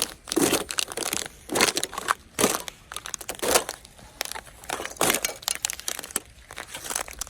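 Footsteps crunching on frosty, icy ground at a walking pace, about one crunch a second.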